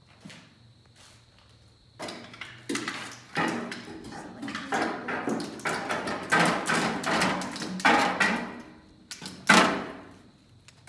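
Loud, irregular clanking and banging of metal and debris, starting about two seconds in, with one hard bang near the end.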